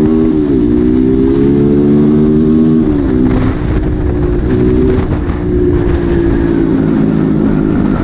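Asian Beast 250 dirt bike's 249cc air-cooled four-stroke engine running under way at a steady, moderate throttle. Its pitch dips and recovers just after the start, then drops a little about three seconds in and holds steady.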